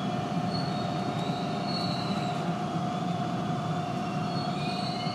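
Toronto subway train running on the Yonge line, heard from inside the front car: a steady low rumble of wheels on track with a constant hum, and faint high-pitched wheel squeals twice, about two seconds in and near the end.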